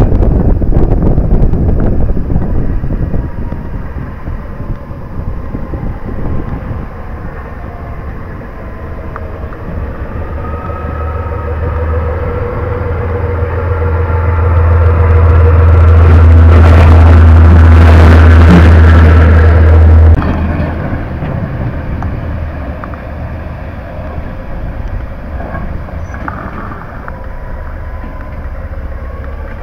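Caterpillar 600 hp diesel engine of a DB Class 363 shunting locomotive running as the locomotive moves slowly through the yard, a steady low drone that swells as it comes close. Wind buffets the microphone at first; about twenty seconds in the loud drone cuts off suddenly and a quieter, more distant engine drone goes on.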